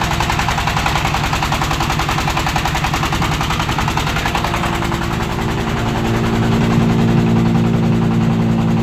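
Dompeng single-cylinder diesel engine running a 7500 W generator under load test, a fast, even chugging. About six seconds in, a steady hum comes up under it and it grows slightly louder.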